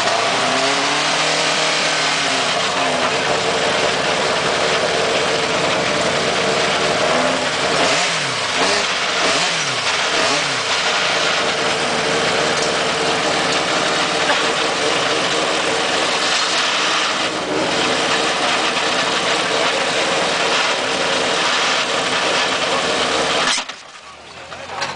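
Subaru Impreza WRC 2008 rally car's turbocharged flat-four engine running loud, revved up and down in quick sweeps at the start and again several times about eight to eleven seconds in. It drops away abruptly for about a second near the end.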